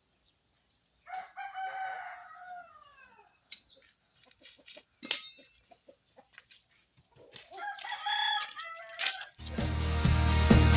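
A rooster crowing twice, each crow about two seconds long with its pitch falling away at the end, with a few sharp clicks in between. Loud music starts near the end.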